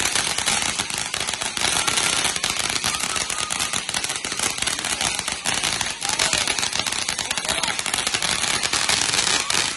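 Ground firework fountains spraying sparks: a dense, rapid crackling over a hiss, holding at a steady level throughout.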